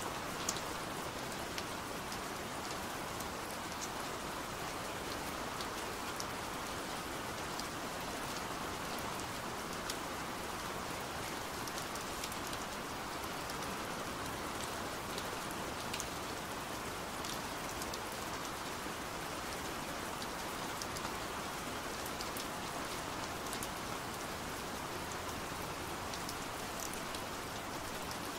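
Steady rain on a window pane: an even hiss with scattered sharp ticks of single drops striking the glass.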